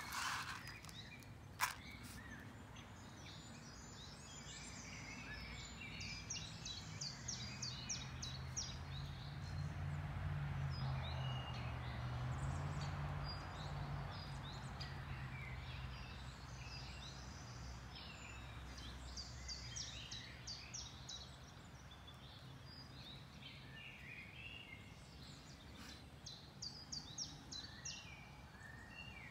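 Small songbirds chirping, with rapid high trills repeating every several seconds. Under them a low rumble swells through the middle and fades again.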